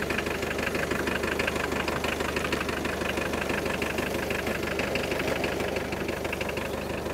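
A 1958 McCormick tractor's diesel engine idling steadily, with an even, fast knock.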